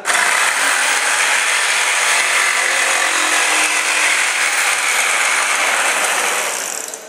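Electric jigsaw cutting through a thin wooden board. It starts suddenly, runs steadily for about seven seconds, and winds down near the end.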